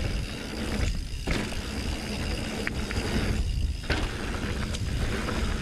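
Mountain bike rolling down a dirt singletrack: steady rumble of tyres and wind buffeting the camera microphone, light rattles and clicks from the bike over the ground, and the rear freehub ticking as it coasts. The rumble eases briefly twice, about a second in and again around three and a half seconds.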